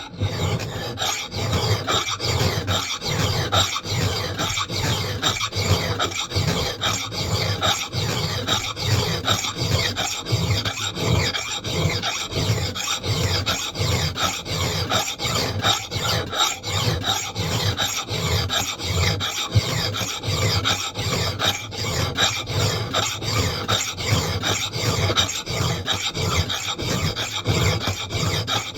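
Hand file rasping across the steel bit of a knot clipper axe in steady, evenly repeated strokes, filing the bevel.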